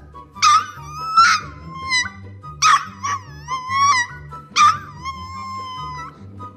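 Boxer puppy giving three high-pitched yelping whines. Each starts with a sharp yip and is drawn out for about a second. Background music with a steady beat runs underneath.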